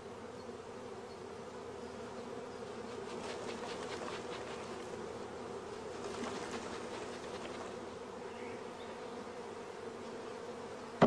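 Honeybees buzzing steadily in a dense mass as they are brushed off brood combs, with faint swishes of the bee brush a few seconds in and again around the middle. A single sharp knock near the end as the swarm box is thumped on the ground.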